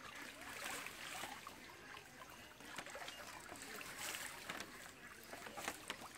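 Canal water trickling through a large fish net trap, faint and steady, with scattered light ticks.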